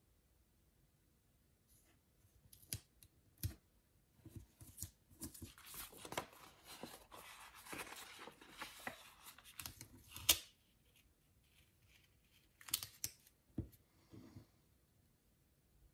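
Paper planner page and sticker sheets being handled: a few light taps, then several seconds of paper rustling that ends in a sharp click, then a few more light taps as a sticker is pressed down.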